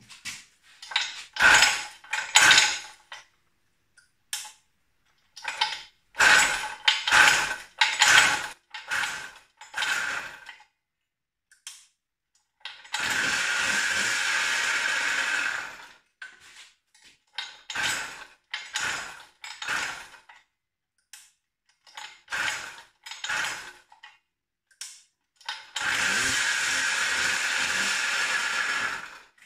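Samurai 40cc two-stroke pocket-bike engine buzzing as the throttle is blipped in short bursts, then held wide open twice for about three seconds each, spinning the rear tyre in a burnout test. The engine still does not rev as high as the owner hopes.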